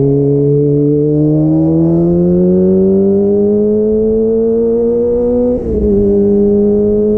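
2022 Kawasaki ZX-25R's 250 cc inline-four running through a DX Generation Pro Race exhaust with the dB killer removed, revs climbing slowly under acceleration. About five and a half seconds in it shifts up: the sound dips for a moment and the pitch drops, then it holds steady revs.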